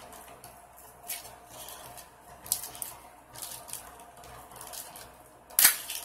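Foil wrapper of a 2006 Bowman football card pack crinkling as it is worked open by hand. It gives a string of short crackles, with one louder crackle near the end.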